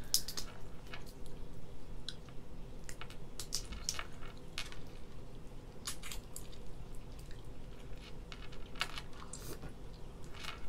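Eating a cooked shell-on shrimp by hand: the shell crackles as fingers peel it, with sucking, biting and chewing in scattered short clicks and crunches.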